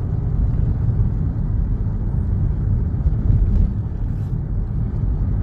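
Car cabin road noise while driving: a steady low rumble of engine and tyres.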